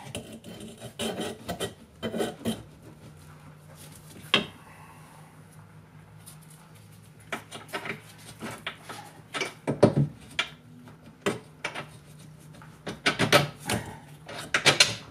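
Hand-fitting parts at a golf cart's rear leaf-spring mount: irregular scraping, rubbing and sharp metallic clicks, busiest in the second half, over a faint steady low hum.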